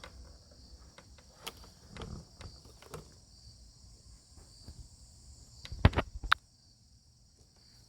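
Steady high-pitched chirring of insects outdoors, with scattered faint clicks and a short cluster of loud sharp knocks about six seconds in.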